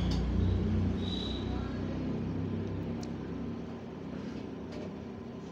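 A low rumble that fades away over a few seconds, with a few faint clicks as a metal ladle stirs thick saag in an open pressure cooker.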